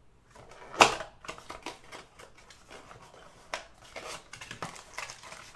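Trading cards being handled: one sharp click about a second in, then a run of lighter clicks and rustles.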